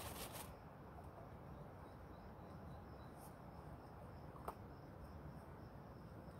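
Quiet outdoor ambience: insects chirping faintly in a fast, even pulse over a low background rumble. There is a brief noise right at the start and one sharp click about four and a half seconds in.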